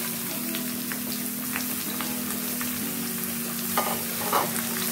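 Chopped bottle gourd sizzling in hot oil and fried onions in a pressure cooker pan, a steady hiss. Near the end a spatula stirs the pieces, scraping and knocking against the pan twice.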